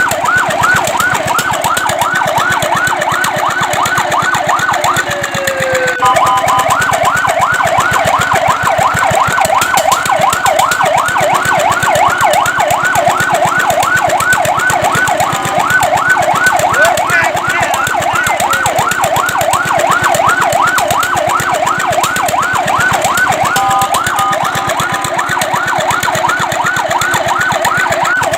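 Fire truck siren sounding a fast yelp, its pitch sweeping up and down about four times a second, with a brief break about five seconds in.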